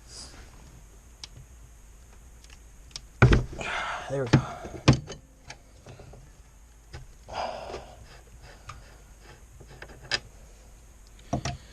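Clanks and clicks of a 1-inch wrench on an oil cooler line fitting as it is worked loose. The loudest clank comes about three seconds in, then two more within the next two seconds, and scattered lighter clicks follow.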